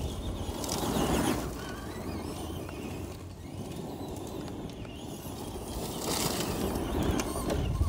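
Electric RC monster truck driving over wood-chip mulch: motor whine and tyres churning the chips, swelling louder about a second in and again around six seconds in. A low wind rumble on the microphone lies under it.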